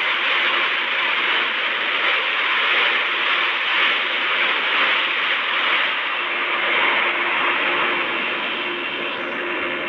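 Steady rushing noise of an Airbus A321-200 airliner landing, easing slightly near the end.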